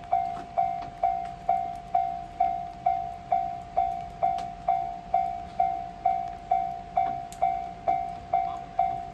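Railway level-crossing warning bell ringing: a single clear ding repeated evenly about twice a second.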